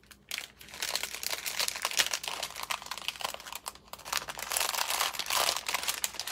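Thin plastic packet crinkling and crackling as it is handled in the hands, an irregular run of dry crackles.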